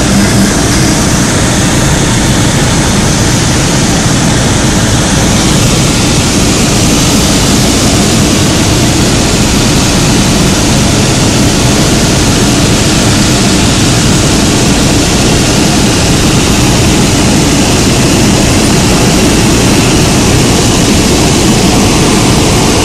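Single-engine propeller aircraft's engine and propeller running steadily, heard inside the cockpit with heavy airflow noise. The loud drone holds a near-constant level throughout.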